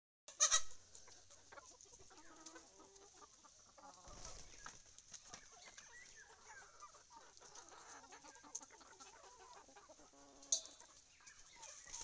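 Rhode Island Red hens clucking faintly, with two brief sharp sounds, one just after the start and a louder-pitched one about ten and a half seconds in.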